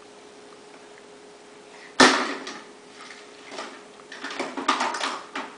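A baby's hands banging on the plastic tray of a high chair: one sharp, loud bang about two seconds in, then a quick run of taps and clatter near the end.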